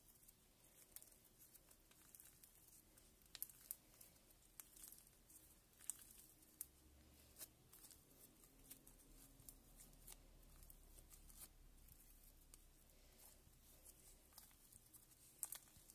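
Faint, irregular crackling clicks from a slime being pulled out slowly, with a few sharper pops among them: the slime crackling as it stretches thin.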